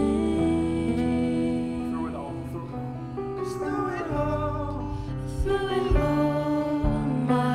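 Slow worship song: a band holding sustained chords while a singer's voice glides over them.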